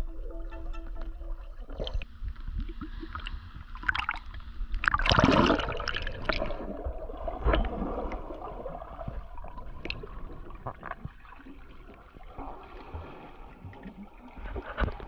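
Water moving around an underwater camera, heard muffled through its housing, with scattered clicks and one louder rush of water about five seconds in.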